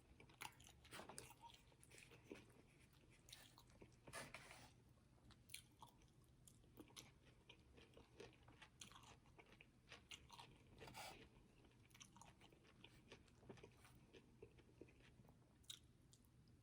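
Faint close-up chewing and mouth smacks of someone eating, with scattered small clicks and a slightly louder bite or smack about four seconds in and again near eleven seconds.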